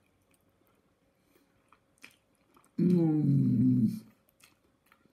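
Light clicks of a fork against a plate of spaghetti, then, a little under three seconds in, a man's drawn-out hummed "mmm" lasting just over a second as he tastes the pasta.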